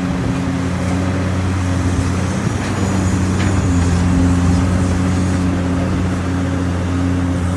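Mini bulldozer's diesel engine running steadily as it spreads soil.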